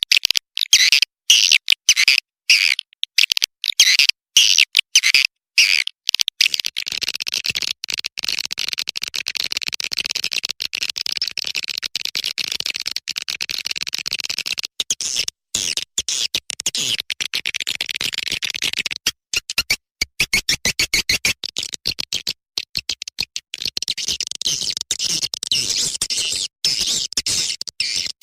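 Swiftlet roosting call played as a lure recording: rapid high chirping and twittering. At first it comes in short bursts about twice a second, then turns into a dense continuous twitter, broken about two-thirds of the way through by a fast, even run of clicks.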